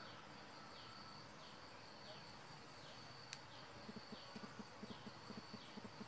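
Faint garden ambience: a steady high insect drone, with a short falling chirp repeating about every three-quarters of a second. From about four seconds in, a quick low pulsing of roughly four beats a second joins it.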